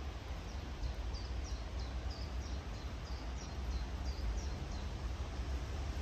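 Wind rumbling low against the microphone with a steady rustle of bamboo leaves, and a small bird giving a quick run of short, high, falling chirps, about three a second, starting just after the beginning and stopping about two-thirds of the way through.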